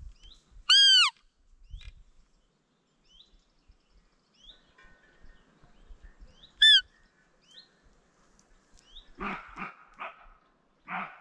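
Two loud, short, high-pitched squeaking calls about six seconds apart, each rising and then falling in pitch. Small birds chirp faintly throughout, and a few short rustling sounds come near the end.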